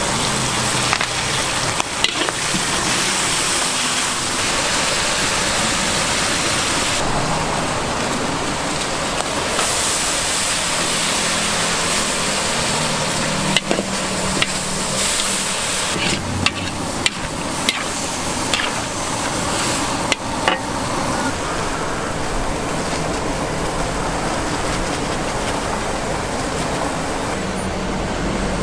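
Food stir-frying in a large steel wok: a steady sizzle, with the metal spatula now and then clicking and scraping against the wok, most often a little past the middle.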